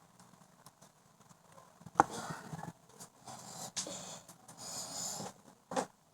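A utensil stirring and scraping a sticky slime mixture in a container, with a sharp knock about two seconds in and another short knock near the end.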